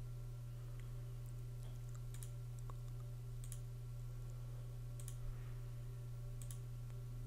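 Computer mouse clicks, about four of them spaced a second or so apart, over a steady low hum.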